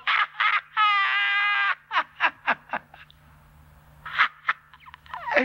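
High-pitched squawking calls: a few short yelps, one long held note about a second in, then a quick run of short falling calls, and two more short calls near the end.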